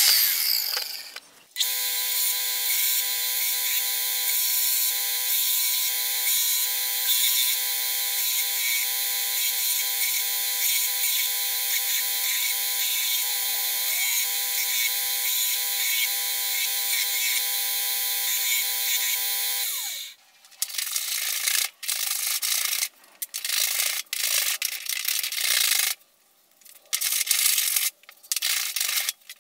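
A mitre saw cuts into wood briefly at the start, the loudest sound here. Then a small belt grinder runs steadily with a whine, sanding a wooden handle blank, and cuts off about twenty seconds in. Irregular scraping strokes of a hand tool on wood follow.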